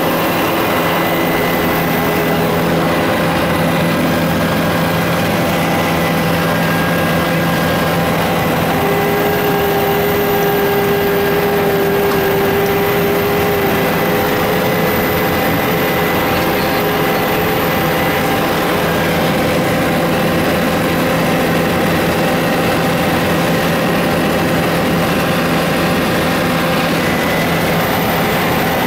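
Tour helicopter in flight, heard from inside the cabin: a steady, loud drone of turbine engine and rotor with a few constant whining tones. A higher hum joins for a few seconds near the middle.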